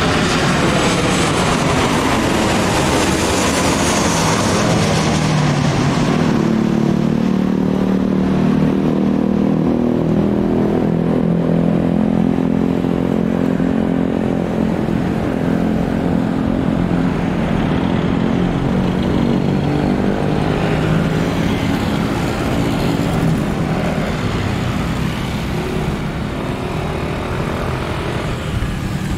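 Boeing 737 jet airliner passing low overhead on landing approach, its engine whine falling in pitch over the first few seconds as it goes by. It is followed by a steady low engine drone that fades slightly near the end as the jet moves away.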